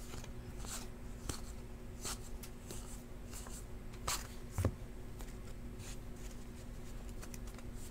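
Trading cards handled and flipped through by hand: faint, irregular slides and flicks of card stock as one card is slid off a stack after another, over a faint steady hum.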